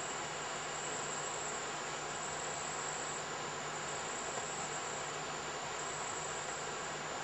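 Steady chorus of rainforest insects, a constant high-pitched whine over an even hiss.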